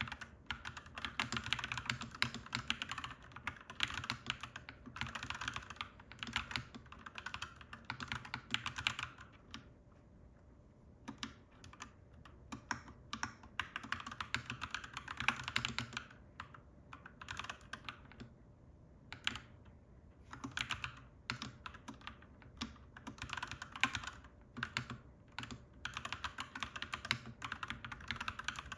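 Clacky mechanical keyboard being typed on: quick runs of keystrokes broken by pauses of a second or two, over a faint steady low hum.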